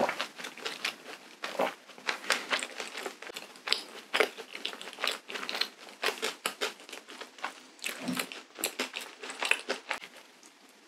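Close-miked wet mouth sounds from chewing and swallowing with a full mouth: a quick, irregular run of smacks and clicks that stops near the end.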